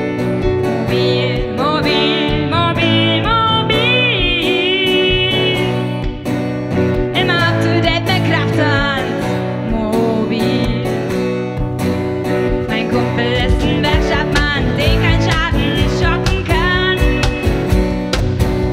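Country-rockabilly band music: a woman singing over strummed acoustic guitar and bass, with a steady low beat coming in about two-thirds of the way through.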